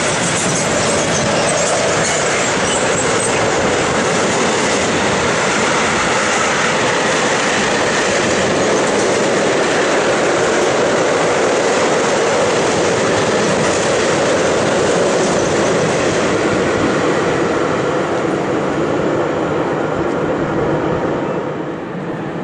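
Freight train of car-transporter and flat wagons rolling past on a curve: a loud, steady rumble of steel wheels on rail with some wheel squeal. It dies down near the end.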